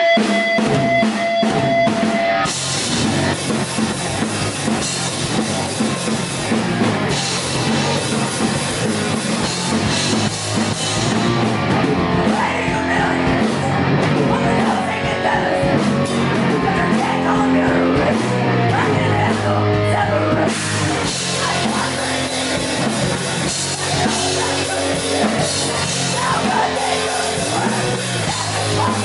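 Live rock band playing loud, with drum kit and electric guitar. A few held tones open it, and the full band comes in about two seconds in.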